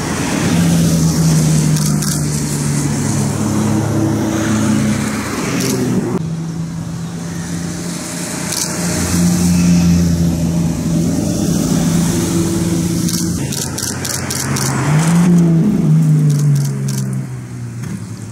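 Supercar engines running at low revs as cars move off, the engine note changing abruptly twice, with one brief rev that rises and falls about three-quarters of the way through.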